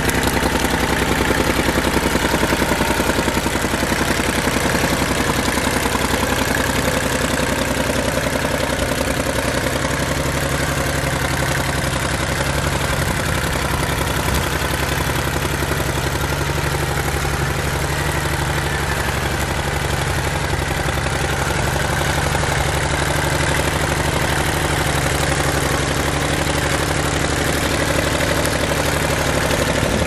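Kubota L2201DT compact tractor's diesel engine running steadily under load as it pulls a disc plow through the soil.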